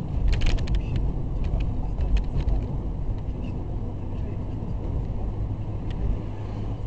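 Steady rumble of a moving car, road and engine noise. There is a quick cluster of sharp clicks or knocks about half a second in, and a few single clicks after it.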